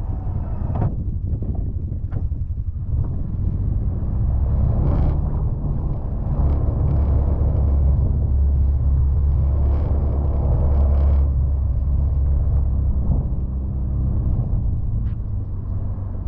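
Can-Am Defender side-by-side's engine running with a steady low drone. It grows louder from about six to eleven seconds in, and a few short knocks sound over it.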